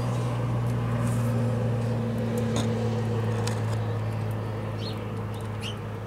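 A steady low mechanical hum that swells slightly and then eases off a little, with two short high bird chirps near the end.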